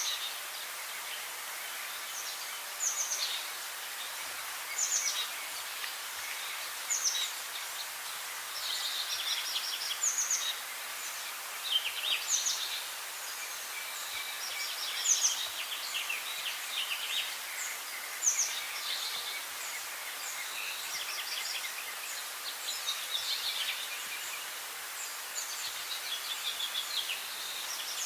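A songbird singing short, high phrases that repeat every two to three seconds, over a steady background hiss.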